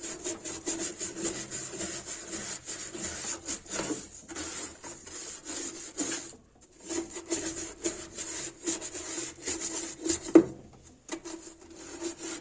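A stiff tile brush scrubbed hard and fast against the rusting metal seat under a top-loading washing machine's impeller, in quick scratchy strokes with two short pauses. A single sharp knock, the loudest sound, comes about ten seconds in.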